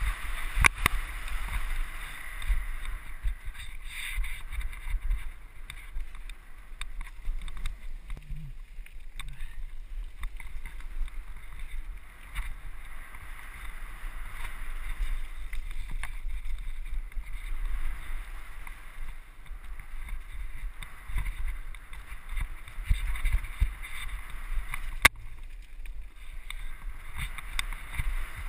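Wind buffeting the microphone and tyres crunching over a gravel trail as a mountain bike descends at speed, with scattered knocks and rattles from the bike over bumps, one sharp knock near the end.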